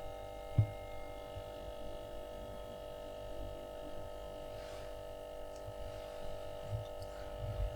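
Used replacement compressor in an Atlant refrigerator running with a steady, multi-toned humming whine, the characteristic noise that sets in after a few minutes of running while the fridge does not cool at all; the cause is unknown to the technician. A brief low knock about half a second in.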